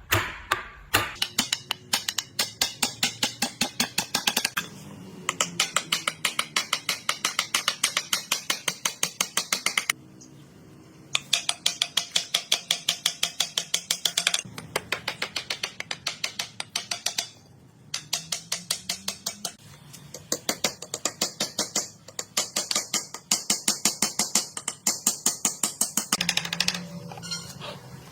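Rapid, regular hard tapping, several sharp taps a second, in runs of a few seconds broken by short pauses.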